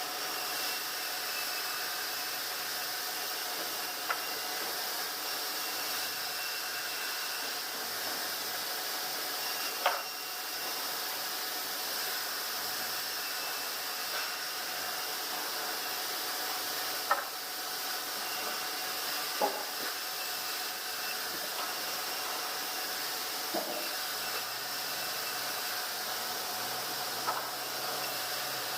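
Sawmill machinery running steadily, a hiss with a faint whine, broken by about six sharp knocks spread through.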